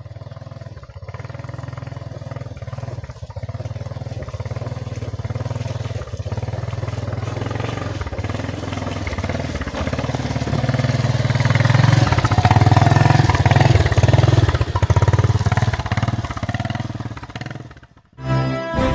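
Small motor scooter engine running as it rides toward the microphone, growing louder to a peak about two-thirds of the way through, then fading and cutting off suddenly near the end.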